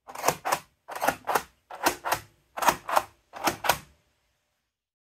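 3D-printed plastic mechanical seven-segment counters clacking as their push buttons are pressed and the segments shift to the next digit. There are five quick double clacks, evenly spaced.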